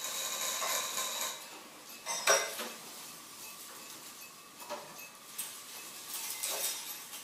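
Small hard objects clinking and rattling as they are handled and set down, with a few separate knocks, the loudest about two seconds in.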